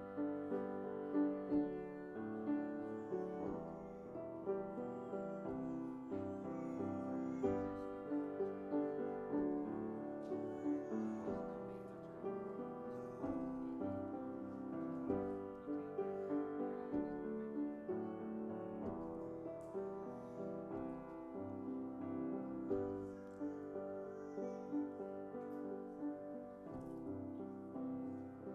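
Piano playing a continuous instrumental piece, notes changing steadily throughout.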